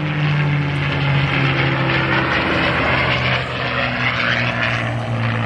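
P-51D Mustang's Packard Merlin V-12 engine roaring loud as the fighter flies by, its pitch slowly falling as it passes.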